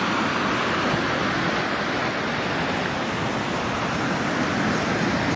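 Rushing floodwater: a loud, steady hiss of fast-flowing water with no pauses.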